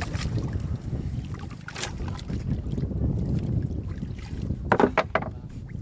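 Wind rumbling on the microphone while hands work in shallow muddy water inside a waterlogged wooden boat, with a sharp splash about two seconds in and a quick run of splashes near the end.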